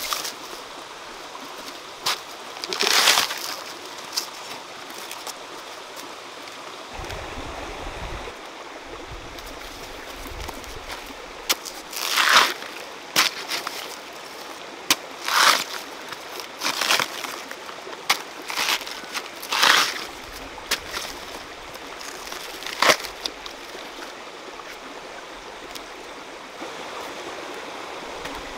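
A knife cutting and stripping the fibrous layers off a banana pseudostem: short, sharp tearing and slicing sounds, mostly bunched together about halfway through. Under them a stream runs steadily.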